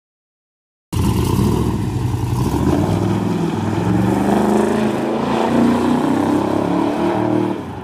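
C3 Chevrolet Corvette's V8 revving hard in a burnout, its rear tyres spinning, with the engine note rising and falling. It starts about a second in and eases off near the end.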